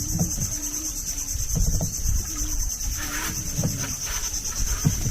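Chorus of insects in the mangrove forest: a shrill, steady, finely pulsing buzz. A few dull low knocks come through over it.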